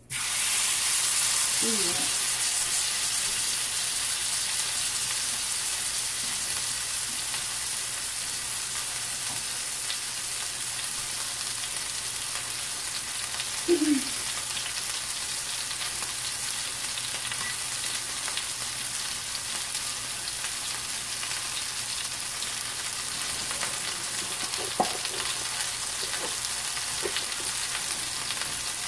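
A boneless beef shoulder roast sizzling in hot oil in a cast-iron skillet as it sears. The sizzle starts suddenly as the meat goes into the pan, then holds steady and eases slightly.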